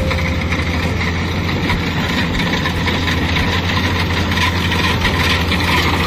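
Kubota DC-70 combine harvester's diesel engine running steadily under load as it cuts standing rice, with an even mechanical clatter from the cutting and threshing machinery. It grows slightly louder as the machine approaches.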